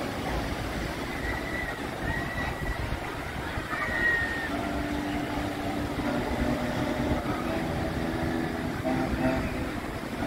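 Outdoor amusement-pier ambience: a steady rushing background with faint voices. A few brief high squeals come in the first few seconds, and a steady hum of several low tones joins from about halfway.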